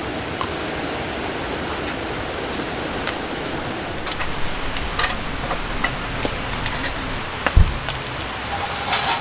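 Steady rain noise, with scattered small clicks and a dull thump about seven and a half seconds in.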